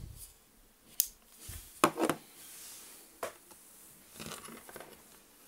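Handling noise as a handheld diamond tester is moved and set down on a wooden table: several sharp clicks and knocks, the loudest about two seconds in, with rustling in between and a short scuffle near the end.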